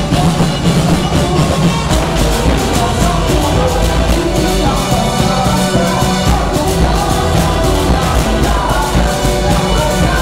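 Loud festival street-dance music: drums and percussion keeping a steady driving beat, with singing voices over it.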